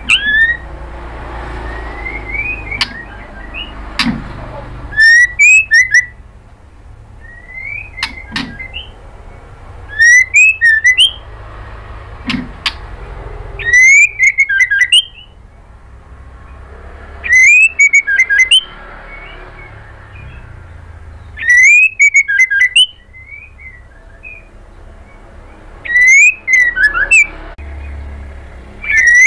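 White-rumped shama singing: loud phrases of about a second, each opening on a rising whistle and running into a rapid run of high notes, repeated roughly every four seconds, with softer whistles in between.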